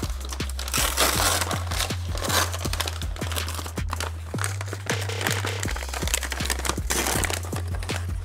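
Background music with a steady beat and bass line, about four beats a second. Brown kraft packing paper crinkles over it as it is unwrapped from a plant cutting, loudest about a second in and again near seven seconds.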